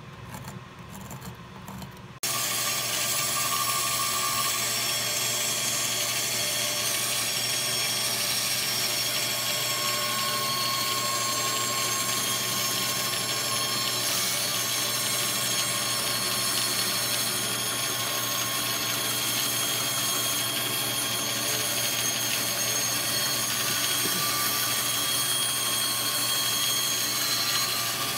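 A handheld or bench power tool running steadily with a high whine, starting suddenly about two seconds in.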